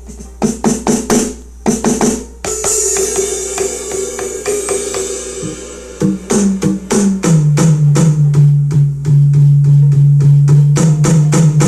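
Electronic drum kit (AMW ED3) playing a preset drum kit through a loudspeaker. There are a few single drum hits first. About 2.5 s in comes a crash-like hit that rings on, and from about 6 s a fast roll of strikes on a deep, pitched tom sound.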